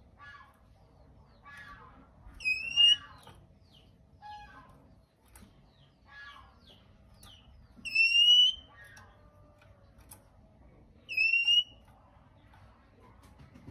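Male oriental magpie-robin calling: three loud, shrill rising whistles spaced a few seconds apart, with softer harsh chattering notes in between.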